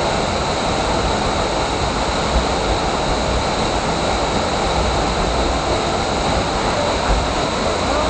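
Tall, slender waterfall plunging into a pool at close range: a loud, steady rush of falling water with a low rumble underneath.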